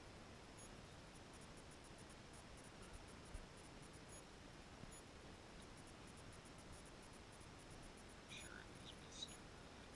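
Near silence: faint room hiss, with a few faint short clicks near the end.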